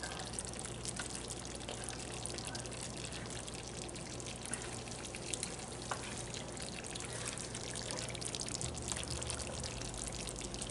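Curry chicken gravy simmering in a pan: a steady bubbling with many small pops, a spoon stirring through it, over a low steady hum.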